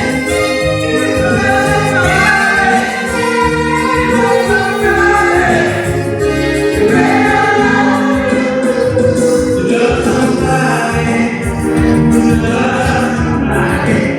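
Live pop music: singing by several voices together over keyboard accompaniment and a steady beat.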